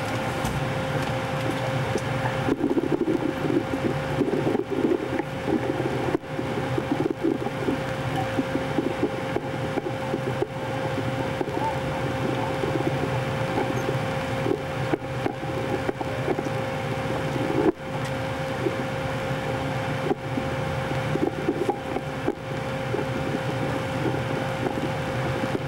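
Steady hum of ventilation and electronic equipment in a battleship's fire-control plotting room, with one constant pitched hum and faint irregular crackling.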